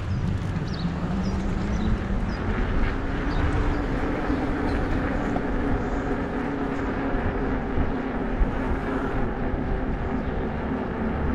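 Electric bike motor whining, its pitch rising over the first few seconds as the bike speeds up and then holding steady, over a constant rumble of wind on the microphone.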